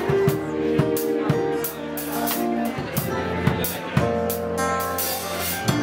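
Band music: a drum kit keeping a steady beat, about two hits a second, under guitar and held notes.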